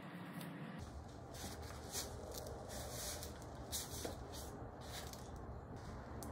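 Rustling and scraping of gloved hands working soil and burlap in a wooden planter box, in short bursts every half second or so.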